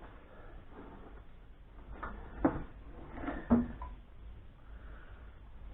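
A few short knocks and clunks, about four of them spread over a second and a half in the middle, from steering rack parts and mounting bushes being handled while a new polybush is tried for fit.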